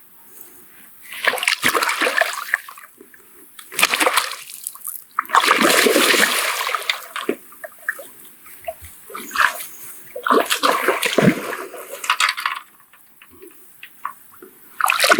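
A hooked small grass carp splashing and thrashing in the water at the bank as it is brought in, in several irregular bursts of a few seconds each.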